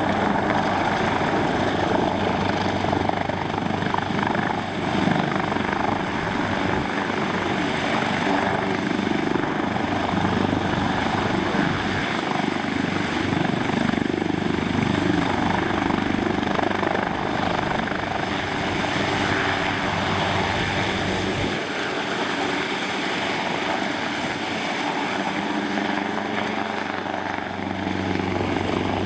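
Leonardo UH-139C twin-turboshaft helicopter running steadily, with a constant high turbine whistle over the thud of the rotor and the engines' noise.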